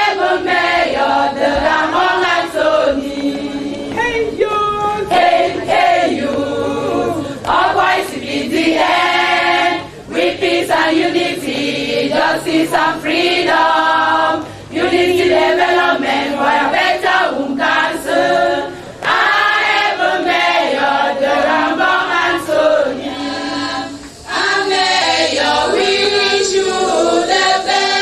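A choir of mostly women's voices singing together, phrase after phrase with short breaks between them.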